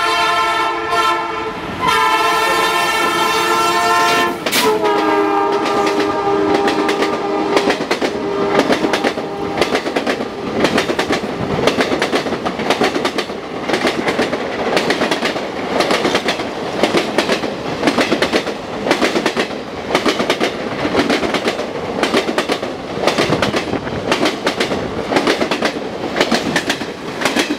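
Horn of WDM3D diesel locomotive #11104 sounding as the train runs through a station without stopping: two long blasts, then a lower-pitched blast lasting about five seconds. After that the passing coaches' wheels clatter rhythmically over the rail joints.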